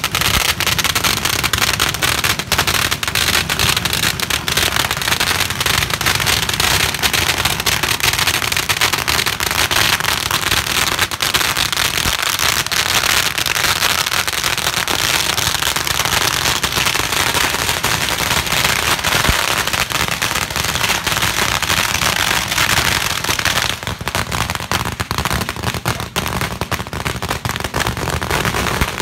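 Masses of firecracker strings going off without pause, a dense, rapid crackle of bangs that thins a little near the end.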